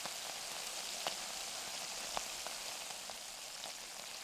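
Bacon sizzling in a frying pan: a steady crackling hiss with a few sharp pops scattered through it.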